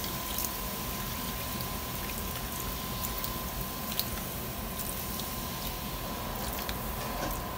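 Sprite poured in a thin stream onto pork hock pieces in a nonstick pan, splashing and trickling over the meat. A faint steady high tone runs underneath.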